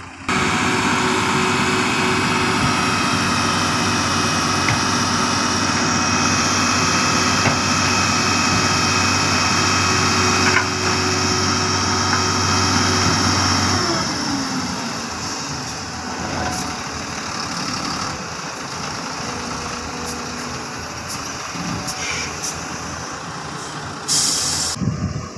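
Heavy mining dump truck's diesel engine running at high revs with a steady whine while its hydraulic hoist tips the loaded bed. About halfway through, the revs drop and the engine runs more quietly. Near the end comes a short hiss of released air.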